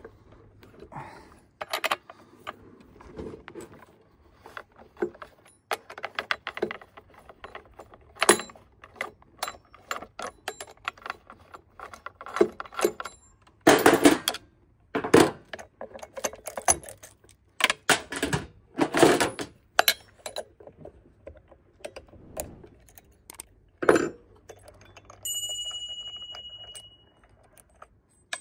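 Metal clicks, clinks and rattles as a Stihl MS261C chainsaw's 3/8 chain, guide bar and clutch drum with rim sprocket are taken off by hand: loose chain links jangle and metal parts knock on the bench. Near the end a steady ringing tone lasts about two seconds and fades.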